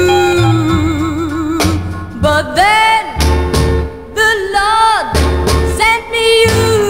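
A teenage girl singing a self-written pop ballad with a backing band, on a 45 rpm single. She holds a long note with vibrato about half a second in, over a steady bass line.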